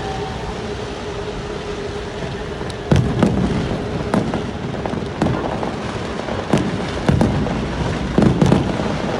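Fireworks display: a quiet first few seconds of steady background noise, then a string of separate sharp bangs from about three seconds in, some coming in quick pairs, as shells burst overhead.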